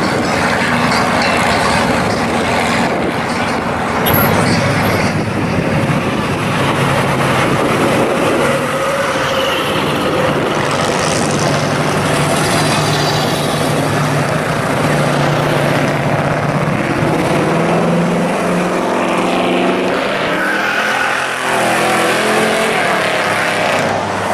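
Classic muscle car engines running as the cars drive by, with a steady exhaust note. About three-quarters of the way in, the engine pitch rises as one accelerates.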